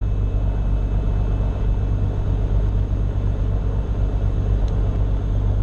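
Beechcraft Bonanza's piston engine and propeller running steadily inside the cabin: a loud, even low drone with no change in pitch.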